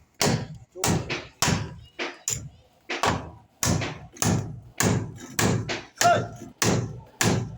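Hammer driving nails into timber formwork, a steady run of about a dozen blows, roughly one every half second to two-thirds of a second.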